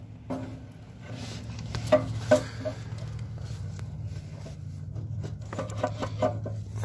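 Metal parts knocking and clinking in an engine bay as a part is worked into place around the exhaust manifold: two sharp knocks about two seconds in, then a run of lighter clicks near the end, over a steady low hum.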